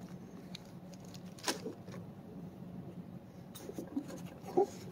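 Light rustling and scratching as hands put down a small plastic bag of parts and rummage in the pockets of a fabric tool bag, with a few soft clicks, the clearest about a second and a half in and just before the end.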